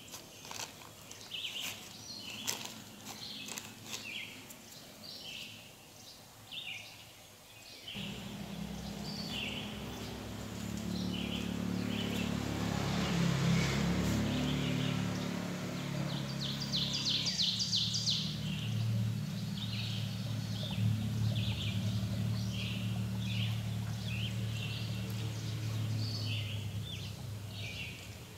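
Small birds chirping repeatedly in short calls throughout. About eight seconds in, a steady low mechanical hum begins suddenly, the loudest sound, and runs on until near the end.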